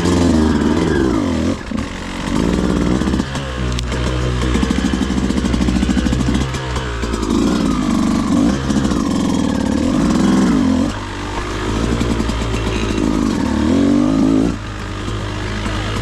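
Beta 200RR two-stroke enduro bike engine being ridden, its revs rising and falling in repeated surges with brief drops off the throttle between them.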